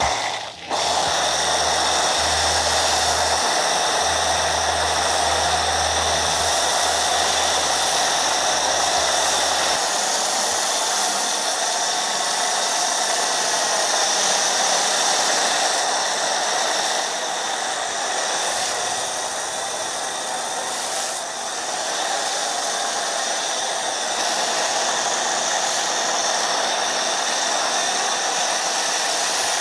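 Pressure washer spraying a jet of water against a foam-covered pickup truck, a steady loud hiss, with a low machine hum underneath for the first third.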